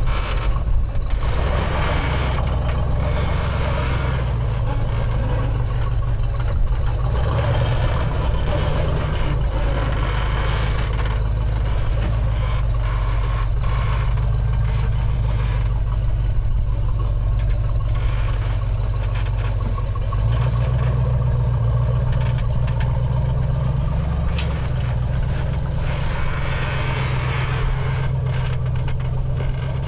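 Lifted Jeep's engine running at low revs as it crawls over a boulder ledge in low range. The note shifts up briefly about two-thirds of the way through as the driver gives it throttle.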